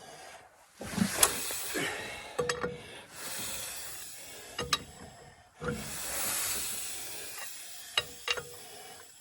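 Caterpillar Sixty's cold engine being hand-cranked with the compression release open, not yet firing: two long hissing swells, about a second and five and a half seconds in, with sharp metallic clicks between them.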